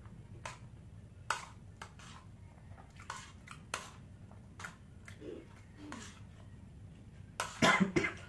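Metal spoon clicking and scraping against a plastic plate while eating, a scattering of light, separate clicks. Near the end, a much louder rough burst lasting under a second.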